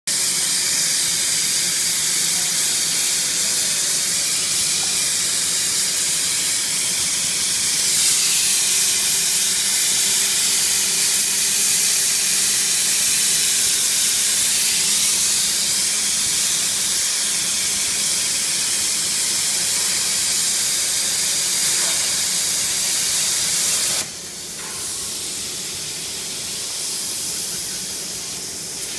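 CNC plasma cutting torch running with a loud, steady hiss as it cuts through plate. About three quarters of the way through, the arc cuts off suddenly and a fainter hiss carries on.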